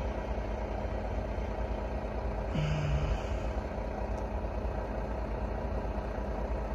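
Steady low rumble of an idling engine, with a short low hum about two and a half seconds in.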